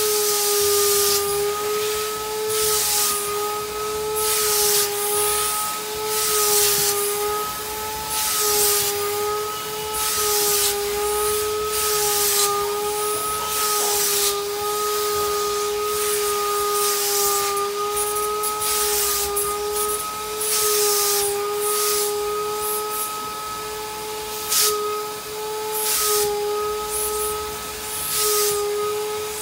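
Canister wet-vacuum cleaning machine running with a steady motor whine, its hose nozzle hissing in repeated strokes, about one a second, as it is drawn over velvet sofa upholstery.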